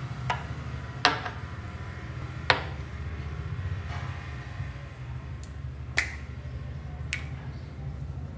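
Sharp clicks and taps of a small glass skincare bottle being handled and its cap worked, about five in all, the loudest about a second in and again a second and a half later. A steady low hum runs underneath.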